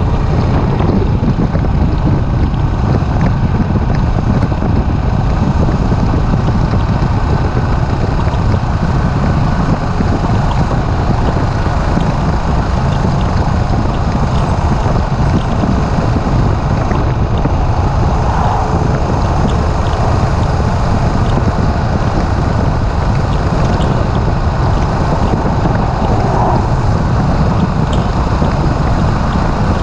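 Steady wind rush on the microphone while riding a Suzuki S40 motorcycle at cruising speed, with the single-cylinder engine running underneath.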